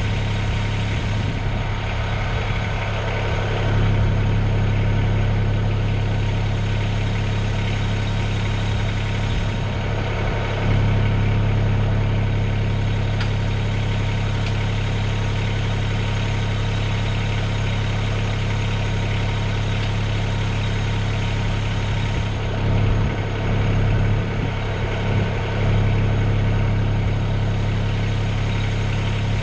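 Mahindra eMax 20S compact tractor's diesel engine running steadily at idle, its note shifting briefly a few times, about 4 and 10 seconds in and again near the end.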